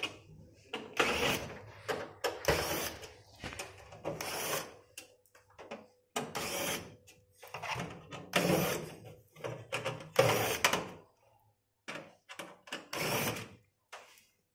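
Screws being worked out of a kitchen chimney's sheet-metal motor housing with a screwdriver: a string of short, irregular mechanical bursts and metallic rattles, about a dozen.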